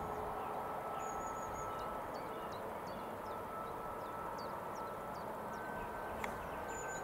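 Distant jet aircraft engine noise at an airport: a steady rush with a thin high whine that steps up slightly in pitch near the end. Small birds chirp over it in short, high calls.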